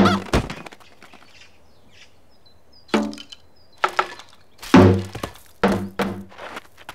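Cartoon sound effects of plastic crates being hit and knocked about: a crash at the start, then, after a short pause, a run of hollow knocks and thuds, about seven in three seconds, as a crate breaks apart and is bumped from inside.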